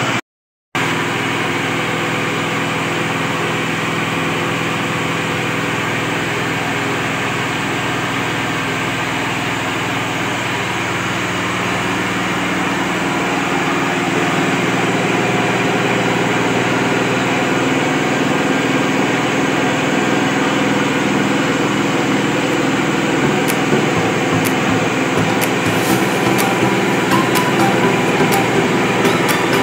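Combined flour-mill, grater and chili-grinder machine running steadily, its drive motor giving a constant engine-like hum with a stack of steady tones. It drops out for a split second about half a second in. Over the last several seconds, scattered sharp ticks and crackles join the hum.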